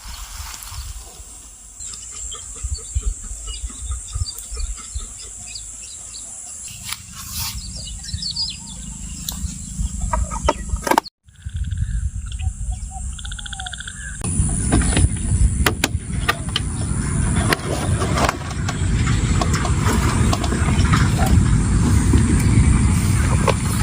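Birds chirping and calling over a steady outdoor background. About two thirds of the way through it changes to a louder, low rumbling noise with the calls still faintly heard.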